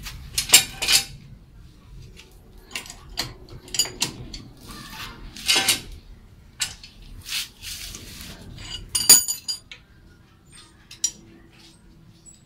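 Metal clinking and clattering as a floor jack and tools are handled: scattered light knocks and clinks, with one bright ringing metallic clink about nine seconds in.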